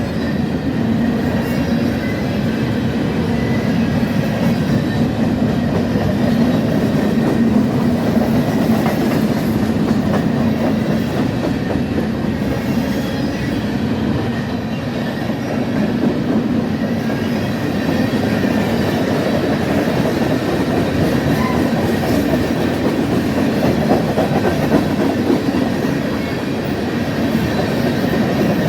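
Freight train rolling past close by: a loud, steady rumble of steel wheels on rail, with a faint, steady high wheel squeal above it.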